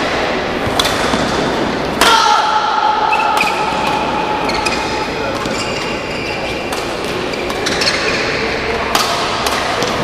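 Badminton rally in a large hall: sharp cracks of rackets striking the shuttlecock, several in the first few seconds and again near the end, with high squeaks of shoes on the court floor, the longest just after two seconds, all echoing.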